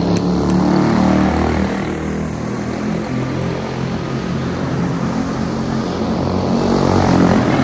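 A pack of Senior Animal class race cars with small single-cylinder engines running at racing speed: loud as they pass close about a second in, falling in pitch as they move off round the oval, then building again as they come back past near the end.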